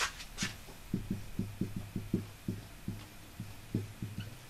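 Dry-erase marker writing on a whiteboard: an irregular run of short, soft, low knocks, about three to four a second, as the strokes press on the board, after a brief scratchy sound at the start.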